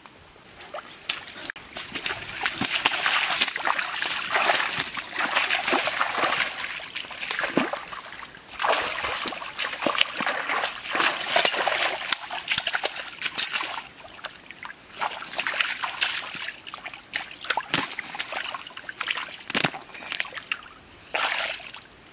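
Hands and feet splashing and sloshing in a shallow rocky stream while grabbing at an eel. The splashing starts about two seconds in and comes in repeated surges with short lulls between them.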